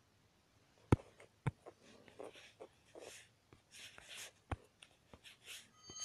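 Faint taps and short scratchy strokes of a stylus on a tablet screen during drawing, with a sharp tap about a second in and a few more later. A short bell-like chime starts at the very end.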